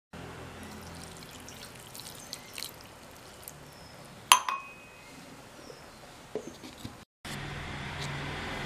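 Water poured from a steel tumbler into a steel mixer-grinder jar of grated coconut, with a single sharp metal clink of steel on steel about four seconds in.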